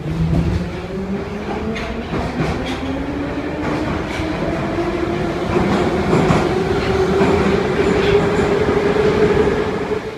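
St. Petersburg metro train running through a tunnel, heard from inside the car: the traction motors' hum climbs in pitch as the train gathers speed, then holds steady. Under it are a rumble of wheels and body and scattered clicks from the track.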